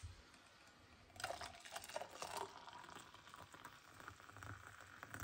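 Hot water poured from an electric kettle into a stainless-steel travel mug. A faint splashing pour starts about a second in and lasts about a second and a half, then trails off into small faint sounds.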